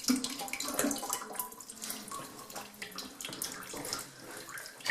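Leftover water from a toilet tank pouring out through the loosened fill-valve opening and splashing unevenly into a pot below.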